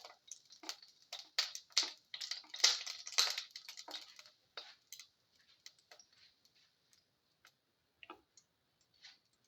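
Quick scraping and clicking of a utensil against a frying pan as the hot oil is spread around it, a run of short strokes. After about four and a half seconds it thins to scattered faint ticks.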